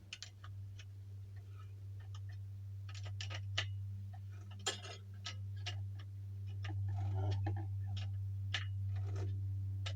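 Irregular metallic clicks of a wrench working the nuts on a spare-tire mount, over a steady low hum that slowly grows louder.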